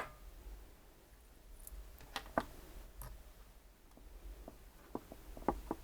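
Light clicks and small knocks of objects being handled: one sharp click at the start, two more about two seconds in, and a run of quicker ticks near the end.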